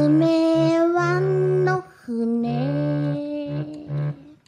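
Organ music: held notes over a steady low note, with a melody line that slides slowly upward in pitch. It breaks off briefly about two seconds in, then carries on and stops near the end.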